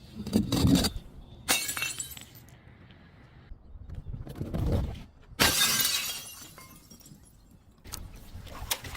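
Glass bottles being smashed: a series of sudden breaking crashes, the longest and loudest about five and a half seconds in.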